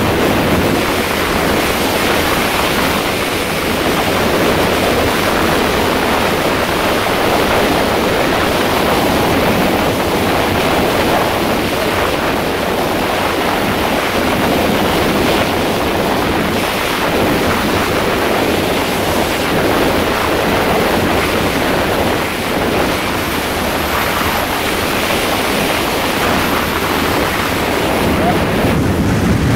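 Steady wind rush on the microphone mixed with the hiss of skis sliding and carving on groomed snow during a downhill run.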